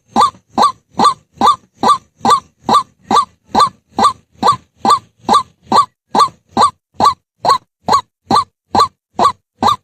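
White-breasted waterhen calling: a steady series of short, loud, honking notes, each rising in pitch, repeated evenly at a little over two a second.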